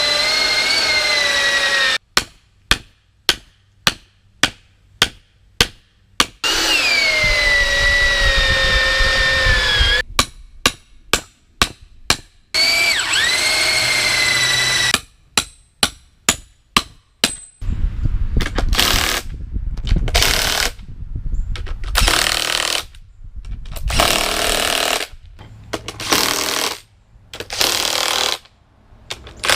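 A power tool running with its pitch sagging under load alternates with three runs of hammer blows, about two a second, on a nut threaded onto a rod to drive the rod in without damaging its threads. From about halfway through, a power tool runs in short, irregular bursts.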